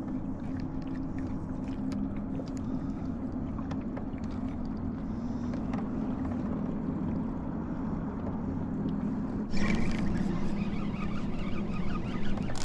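Small fishing boat's electric trolling motor humming steadily. A louder rushing noise joins in about three-quarters of the way through.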